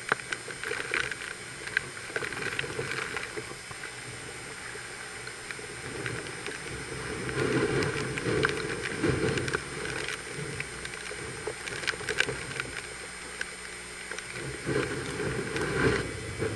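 Hurricane-force wind with rain, gusting and buffeting the microphone in a continuous rush. It swells louder about halfway through and again near the end, with a few sharp clicks.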